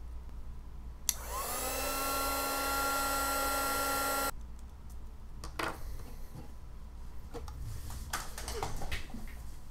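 Small handheld heat gun clicked on, its fan motor spinning up to a steady whine over rushing air for about three seconds as it warms the shellacked grip section of a vintage fountain pen, then cutting off suddenly. Light clicks and knocks of handling follow.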